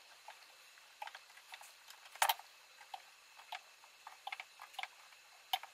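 Light, irregular clicks and taps of a combination square and mechanical pencil being set against and slid along a wooden board while lines are marked, with a sharper tap about two seconds in and another near the end.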